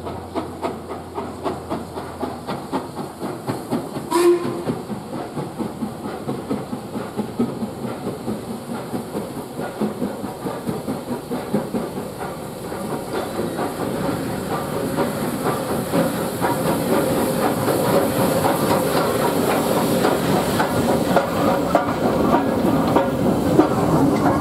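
WD Austerity 2-8-0 steam locomotive No. 90733 running slowly into the station, with a rhythmic beat of about two a second at first and steam hissing. The sound grows louder as it nears, and there is a short sharp note about four seconds in.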